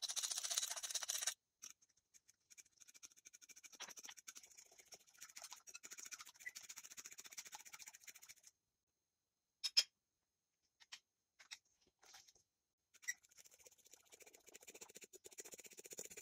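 Batter being whisked by hand in a glass bowl: fast, continuous scraping and tapping of the utensil against the glass, in two long runs with a pause and a few separate clicks between them. A brief louder burst comes right at the start.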